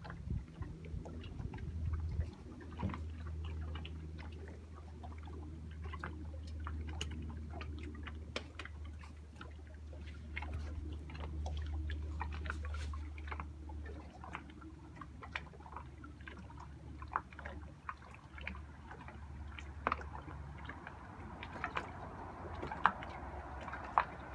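Small waves lapping and sloshing against a wooden pier, with many scattered light clicks and knocks. A low steady drone runs under it until about halfway through.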